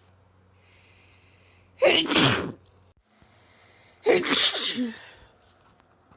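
A person sneezing twice, about two seconds apart, each loud sneeze coming after a fainter drawn-in breath.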